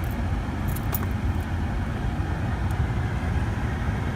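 Chevy Captiva's engine idling steadily after a remote start, a low, even rumble with a light click about a second in.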